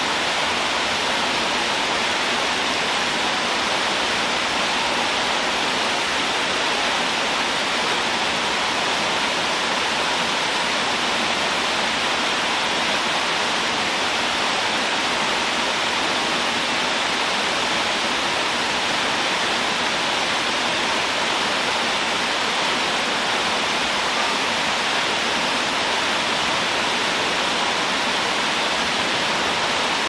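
Replica Trevi Fountain running: water spilling over the rockwork cascades into the basin and small jets splashing, a steady even splashing with no pauses.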